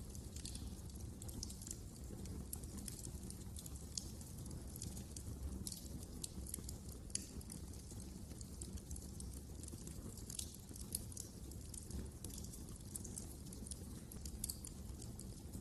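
Wood fire crackling in a fireplace: irregular sharp pops and snaps, many per second, over a steady low rumble.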